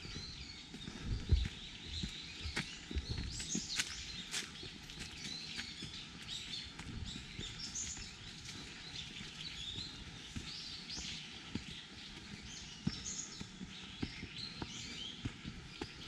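Small birds chirping and calling in short, high notes all through, several at once. Low thumps of footsteps on a path come mostly in the first few seconds, the loudest a little over a second in.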